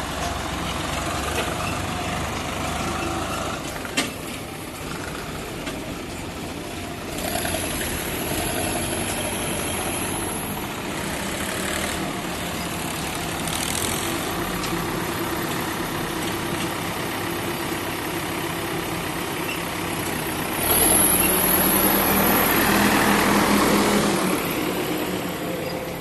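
Diesel engines of a Swaraj 744 FE tractor and an Escorts backhoe loader running steadily, with a sharp knock about four seconds in. The sound grows louder for about three seconds from around 21 seconds in.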